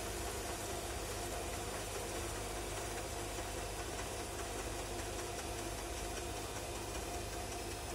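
Bosch Classixx 6 front-loading washing machine in its wash cycle, the drum turning a wet pillow: the motor and drum run with a steady hum.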